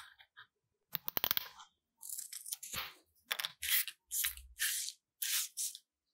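Scissors cutting a paper card: a quick run of clicking snips about a second in, then several short, separate cutting and rustling strokes.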